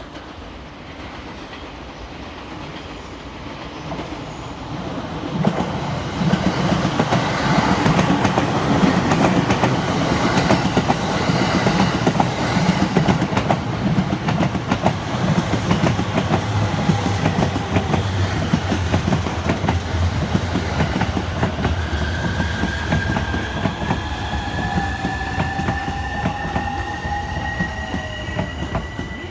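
A 15-car JR E231-series electric commuter train running into the station: rumble and rapid wheel clatter build up and hold. In the last seconds the motors give a thin whine rising in pitch while lower tones fall as it brakes toward a stop.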